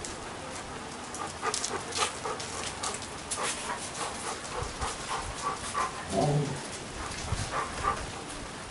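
Rain falling, more than a drizzle: a steady hiss with many separate drops tapping sharply at an uneven pace. About six seconds in there is one brief low pitched sound.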